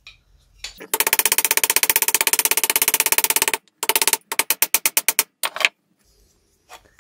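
Steel body hammer striking 1 mm sheet steel against a dolly (hammer-on-dolly) in a fast, even run of ringing metallic blows for about three seconds, then after a brief pause a shorter run that tails off. The blows stretch and thin the steel to raise a curve in the panel.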